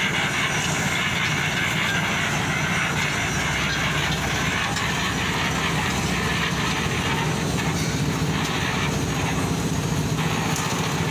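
Engine-driven drum concrete mixer running steadily, with mix tumbling in the turning drum.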